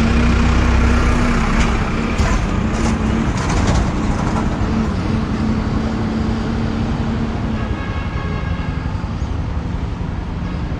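Road vehicle running along the highway: steady engine and road noise with an engine hum that fades about seven seconds in, and a few knocks in the first half.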